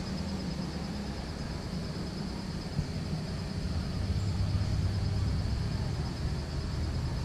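Steady high-pitched insect chorus with a fine even pulse, over a low steady rumble that swells slightly about halfway through.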